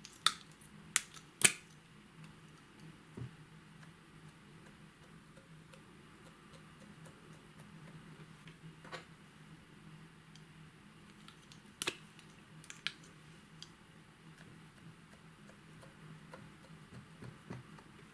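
A handful of sharp clicks and taps: three in quick succession right at the start, then a few scattered ones later, over a faint steady low hum.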